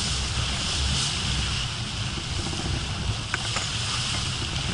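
Wind buffeting the microphone over the steady hiss and rush of water breaking along the hull of a heeled Dehler 36 CWS sailing yacht driving through waves. A faint tick about three and a half seconds in.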